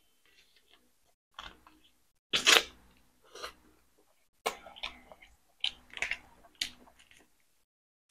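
Close-up eating sounds of boiled chicken being bitten and chewed: a string of irregular wet crunching and crackling noises, loudest about two and a half seconds in.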